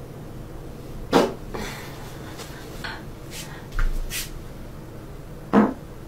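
Several brief, sharp pops over a faint steady room hum. The strongest comes just before the end.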